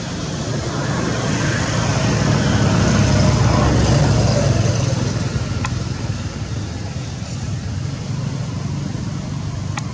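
A motor vehicle passing by: low engine and road rumble swells to a peak about three to four seconds in, then fades away over a steady background of road noise.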